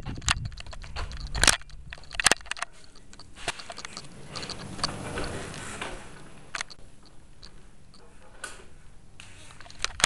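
Handling noise from a handheld camera being moved about and covered: scattered knocks and clicks over a faint rustling.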